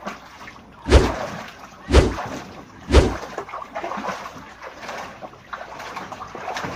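Water splashing in a small inflatable pool as a person does swimming arm strokes: three heavy splashes about a second apart, then continued sloshing and lapping of the water.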